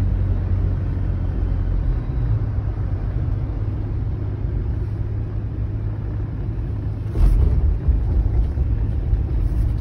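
Steady low rumble of engine and tyre noise heard from inside a car cabin while driving on a highway. About seven seconds in, a short, louder low rumble rises over it.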